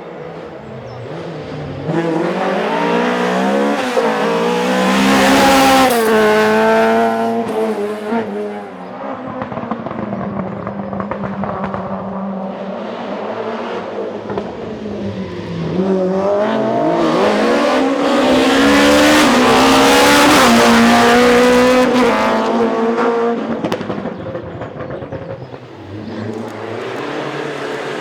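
Rally cars passing at full throttle, their engines revving up through the gears: one pass about two seconds in and a second, louder one a little past the middle.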